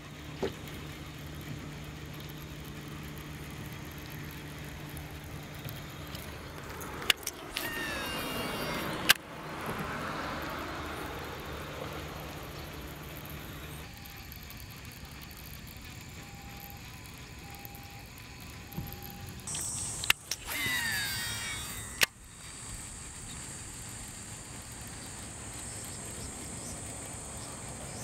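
Baitcasting reel casting a crankbait, twice. Each cast starts with a sharp click and the free-spinning spool whirs, falling in pitch as the lure flies out. A steady low hum runs through the first half, and insects buzz steadily in the last third.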